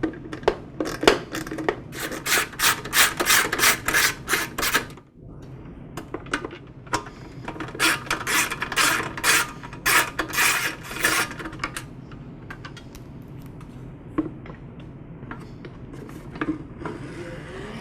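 Ratchet wrench clicking in fast runs as the fuel tank's mounting bolts are backed out: two long bursts of rapid clicks with a short break between, then scattered clicks.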